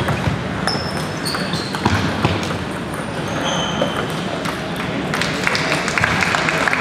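Echoing gymnasium full of table tennis play: celluloid balls clicking off bats and tables, with short high shoe squeaks on the wooden floor and background chatter. About five seconds in a denser patter sets in, like scattered clapping.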